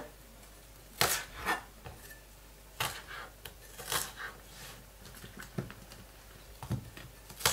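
Kitchen knife slicing pechay stalks on a wooden cutting board, each cut ending in a sharp knock of the blade on the board. About seven cuts, unevenly spaced a second or so apart.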